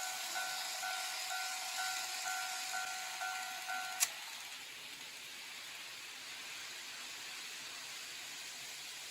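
Electronic warning bell of a KATO N-scale automatic level-crossing unit ringing in a repeating ding-ding, about two strokes a second, then cutting off with a click about four seconds in. A faint steady hiss follows.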